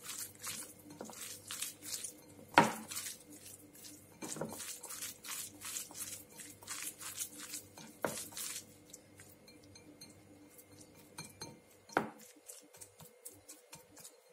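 Hands kneading and squeezing pork belly slices with minced garlic and seasoning in a ceramic bowl: quick rubbing strokes several times a second, with a few sharper knocks of the hand against the bowl. The strokes thin out and grow quieter after about eight seconds.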